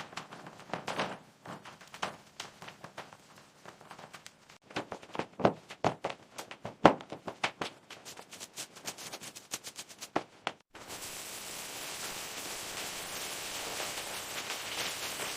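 Renovation work: a rapid run of irregular knocks and taps, then about two-thirds of the way through it switches abruptly to a steady hissing noise.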